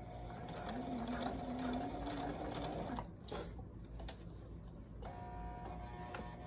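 Brother electric sewing machine running steadily, stitching elastic into swimsuit fabric.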